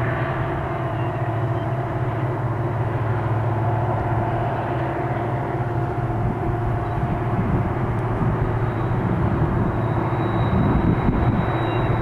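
Diesel locomotive engines running steadily, a deep drone with a steady hum above it, getting a little louder around ten seconds in.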